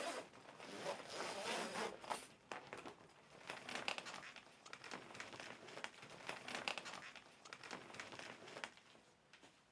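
Faint rustling and crinkling of the patient isolator's plastic enclosure being handled and unzipped, in uneven scratchy bursts.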